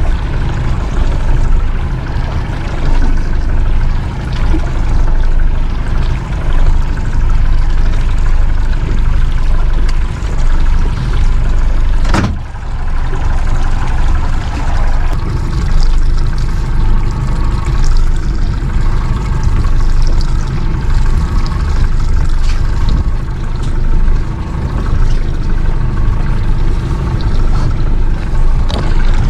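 Fishing boat running under way: a steady engine drone with water rushing past the hull. One sharp knock about twelve seconds in.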